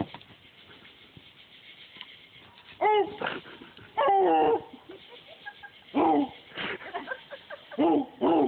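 Coon dog barking treed at the base of a tree: about five loud, drawn-out barks, the first about three seconds in. This is a hound's tree bark, the call it gives when it has a raccoon up a tree.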